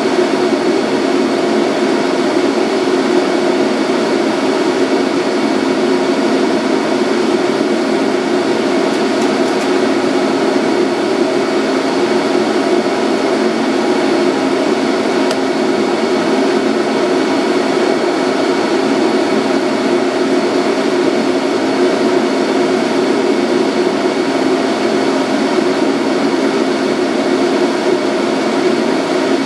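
Steady hum of a Centram low-floor tram's onboard equipment while the tram stands still, an even machine drone with a few fixed tones that does not change.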